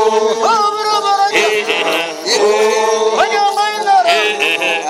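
Samburu group singing: several voices chant together in held notes that swoop up at the start of each phrase, repeating about every second.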